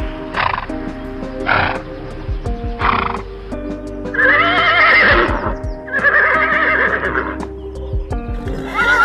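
Horse whinnying: two long, wavering calls about four and six seconds in, after a few short breathy bursts, over background music with steady held notes.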